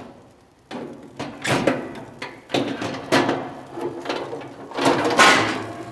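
Metal rotisserie spit and wire rotisserie basket being worked loose and slid across a gas grill: a series of metallic scrapes and clanks, about four of them loud.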